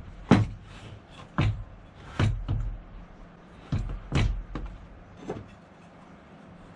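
A Bosch electric hand planer being handled and set down on a wooden workbench: about eight knocks and clunks of its body against the wood, ending about five and a half seconds in. The planer's motor is not running.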